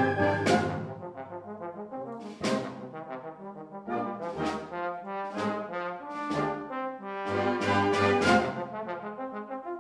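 Live wind band playing a concert piece for bass trombone and wind band, with the brass to the fore. Sharp accented hits come every second or two, loudest near the start and again about eight seconds in.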